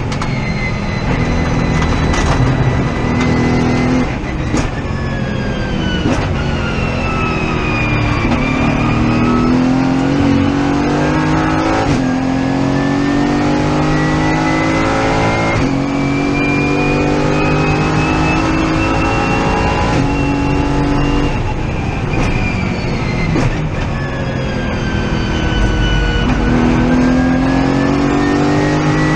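Mercedes-AMG GT4's twin-turbo V8 heard from inside the cockpit at full racing pace: the engine note climbs and drops sharply at several quick upshifts, then falls away as the car slows for corners before pulling up again. A high whine rises and falls smoothly underneath.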